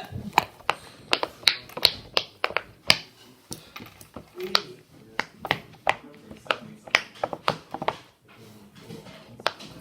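Bubbles of a giant silicone pop-it fidget toy pressed one after another, each giving a sharp pop, in an uneven run of about two to three a second.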